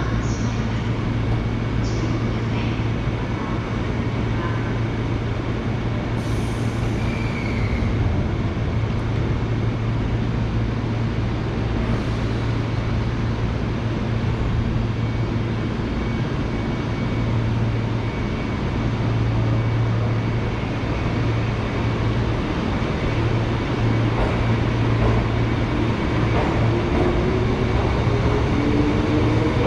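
JR 205 series electric train standing at the platform with a steady low hum, then pulling away. Near the end a rising whine from its traction motors grows as it accelerates.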